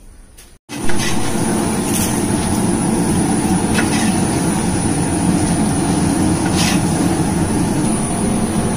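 Gas burner running under a large aluminium cooking pot: a loud, steady, even rushing noise with the curry coming to the boil. It starts abruptly just under a second in.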